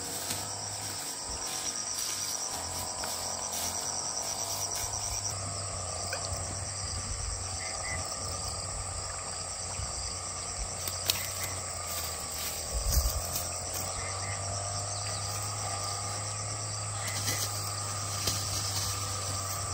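Crickets and other insects chirping steadily in a fast pulsing trill, with a few short knocks past the middle.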